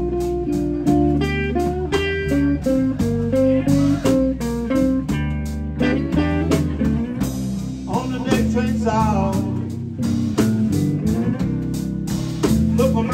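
Live blues band playing an instrumental passage: electric guitar picking single-note lines over electric bass and drums, with bent, wavering notes from about eight seconds in.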